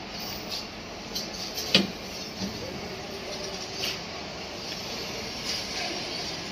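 Plywood storage lid of a steel double bed being lifted open on its gas struts, with one sharp knock about two seconds in and a few lighter clicks of wood and metal.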